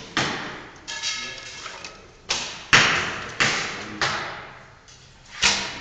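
Recurve and traditional bows being shot: about seven sharp thwacks of bowstrings released and arrows striking targets, each followed by a long echo in a large hall.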